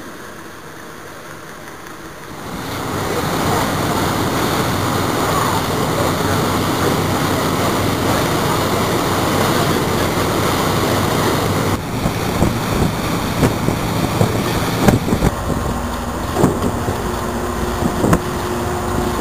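Steady rushing wind and water noise aboard a moving boat, rising sharply about two seconds in and turning gusty and uneven, with sharp knocks, in the second half.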